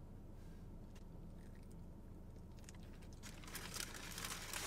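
Faint low hum, then from about three seconds in a stretch of crinkling as a paper sandwich wrapper is handled.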